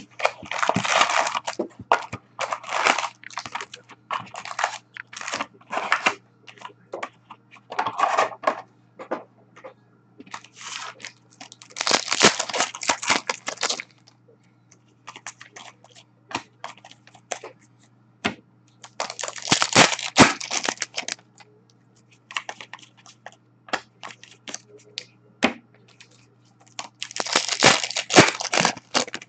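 Foil-wrapped hockey card packs handled and torn open by hand, the wrappers crinkling in repeated bursts of crackly rustling, with small clicks and taps between.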